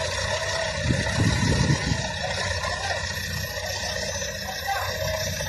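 Heavy diesel machinery engine running, with a louder low rumble about a second in. Faint voices can be heard behind it.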